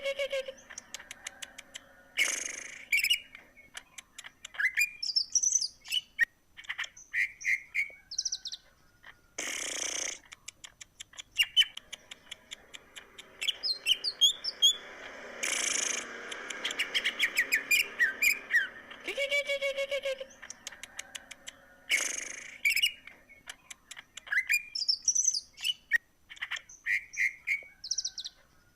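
Green leafbird (cucak ijo) singing prolifically: a long, varied song of chirps, whistled glides and trills mixed with fast clicking, broken every several seconds by short harsh noisy bursts.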